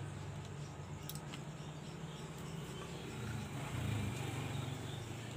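A few light clicks of hand mixer plastic parts being handled and pried apart, over a steady low hum that swells briefly near the end.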